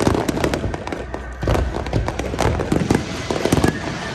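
Aerial fireworks going off in quick succession: a dense run of sharp bangs and crackles with deeper booms among them.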